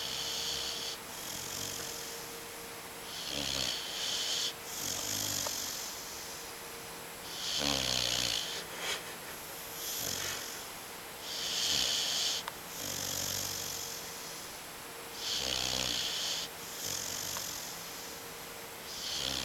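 English Mastiff puppy snoring in its sleep: slow, regular breaths about every three to four seconds, some with a low rattling snore and each with a hissing breath.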